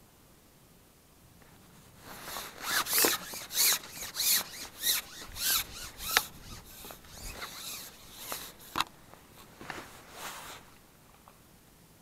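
A carbon fishing pole being shipped back hand over hand to bring in a hooked fish. Each pull slides the pole with a short rasp, about a dozen strokes at roughly one every half second, starting about two seconds in and stopping shortly before the end.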